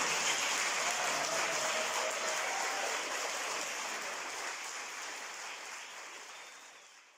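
Audience applauding, fading out steadily until it stops.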